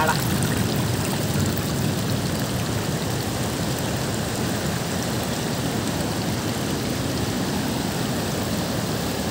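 Fast, turbulent mountain river rushing over rocks and boulders: a steady, even rush of white water.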